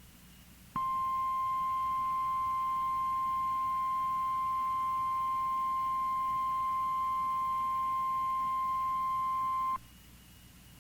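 NOAA Weather Radio 1050 Hz warning alarm tone: one steady, unwavering tone that switches on just under a second in, holds for about nine seconds and cuts off abruptly. It is the attention signal broadcast to alert receivers ahead of a warning message, here a blizzard warning.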